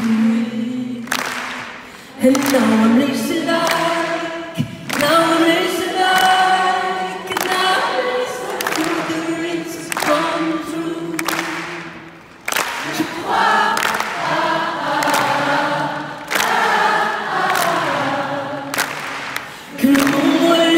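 A large arena crowd singing a pop song in chorus along with the lead singer, phrase after phrase with short breaks, over a sharp beat about once a second.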